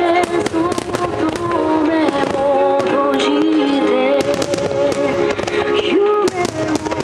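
Fireworks bursting and crackling in rapid, many-shot succession, with music carrying a sung melody playing at the same time.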